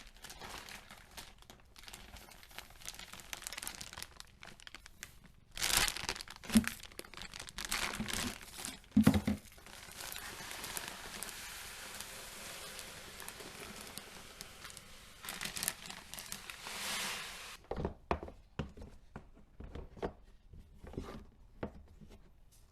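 Bag of cat litter crinkling and rustling as it is handled and opened, with a few knocks, then fresh litter pouring into the litter box in a steady hiss for about seven seconds, followed by scattered small clicks and rustles as it settles and is spread.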